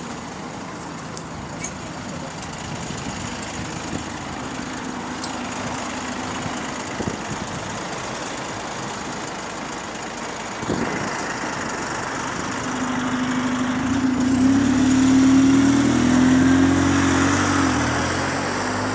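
Diesel engine of an Alexander Dennis Enviro200 single-deck bus, running at a high idle, then revving as the bus pulls away from the stop, its note rising and wavering and growing loudest near the end. A single knock about ten seconds in.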